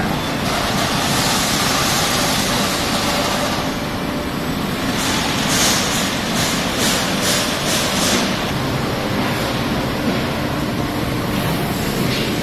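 Bystronic Byspeed 4.4 kW CO2 laser cutting machine running: a loud, steady machine noise, with a run of short hissing bursts, about two or three a second, in the middle.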